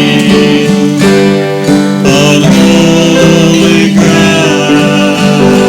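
Strummed acoustic guitar playing a slow worship song, chords changing about once a second, with singing.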